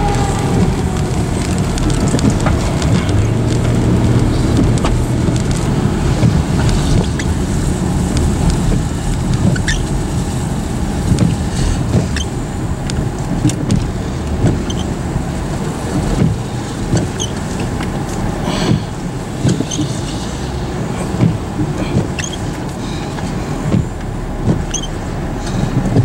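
A car driving on wet roads in heavy rain, heard from inside the vehicle: a steady rumble of tyre and engine noise with scattered sharp ticks.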